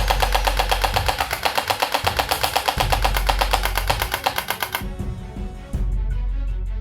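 Electric MP5K gel blaster firing a long, rapid burst of evenly spaced shots that stops suddenly about five seconds in, over background music.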